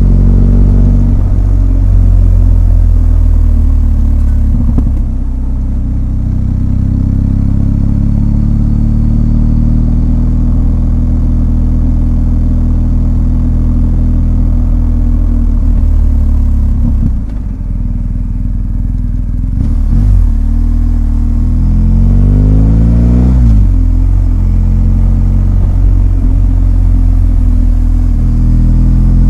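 BMW R1250 GS's 1254 cc boxer twin engine running under way, its note rising and falling with the throttle. It eases off and quietens for a couple of seconds just past halfway, then climbs in pitch as it pulls up through the revs.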